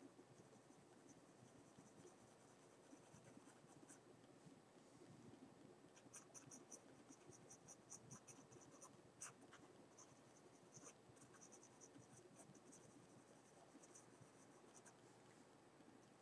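Faint scratching of a mechanical pencil's lead on paper in many short strokes, sparse at first and coming thick and fast from about six seconds in, with one louder stroke a few seconds later.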